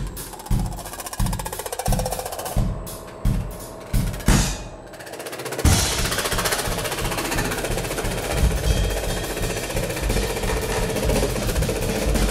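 Background music with a steady drum beat, which about five and a half seconds in gives way to a dense, continuous drum-roll-like rattle.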